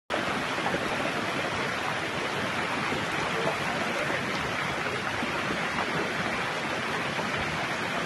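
Muddy floodwater rushing past in a steady torrent.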